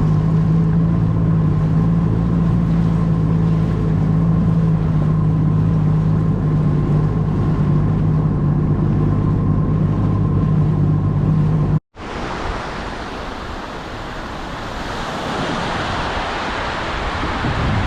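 Jet ski engine running at a steady pace, its pitch held even. About twelve seconds in it cuts off abruptly, and a rushing noise of wind and surf takes over, swelling toward the end.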